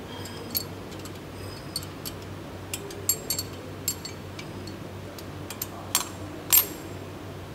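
Irregular metal clicks and clinks of a spanner working the screws of a packing machine's date-printer mounting bracket as it is loosened to be shifted sideways, the two loudest clinks coming about six seconds in. A steady low hum runs underneath.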